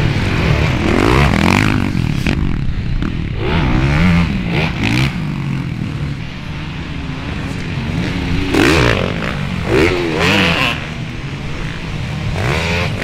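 Motocross bike engines revving hard and easing off on a dirt track, their pitch sweeping up and down again and again with the throttle. The loudest swells come about a second in and again around nine to ten seconds in.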